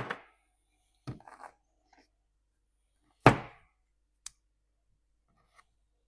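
A few sharp knocks and clicks of hard objects being handled, with the loudest knock about three seconds in and a light click a second later.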